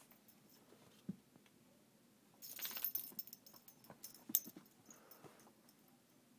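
Rustling and scuffling of a puppy tussling with a plush slipper on couch cushions: a soft thump about a second in, a burst of rustling between two and three seconds in, then scattered clicks with one sharp click a little after four seconds.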